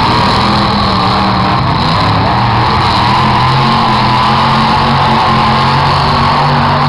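Demolition derby cars' engines running hard together, a loud steady din with no distinct crashes.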